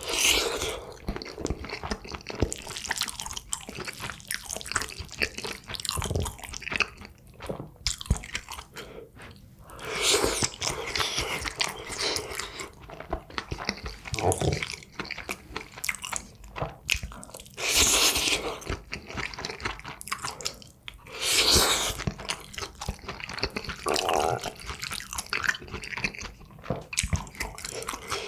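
Close-miked chewing and biting of food, with wet mouth clicks and light crunches throughout. Four louder noisy swells, each about a second long, come near the start and about 10, 18 and 22 seconds in.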